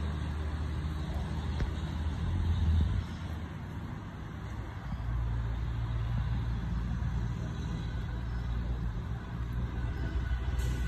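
Low, steady engine rumble of a motor vehicle. It dips for a moment about three seconds in and comes back slightly higher-pitched about five seconds in.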